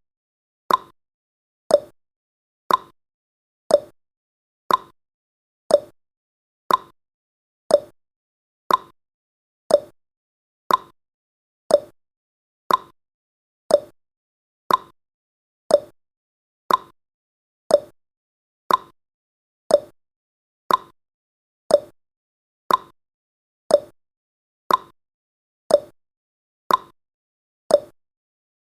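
Countdown timer's clock-tick sound effect, one sharp tick each second, alternating between a higher and a lower tick like a tick-tock.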